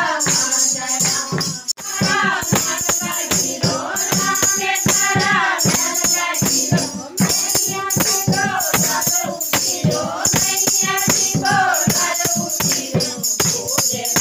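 A group of women singing a devotional song together, with hand clapping and jingling tambourines keeping a steady beat.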